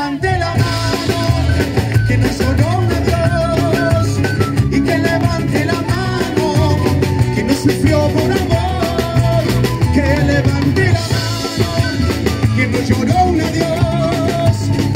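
Live band music: drum kit, electric bass and strummed acoustic guitar playing a steady upbeat rhythm, with a vertical wooden flute carrying the melody through a microphone.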